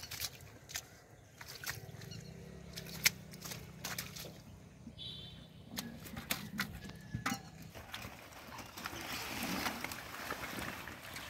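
Sharp wet slaps and knocks as live catfish flap on muddy grass and are handled into a metal pot. A low hum runs underneath for several seconds in the middle. Near the end comes a rustling as water hyacinth clumps are pulled up.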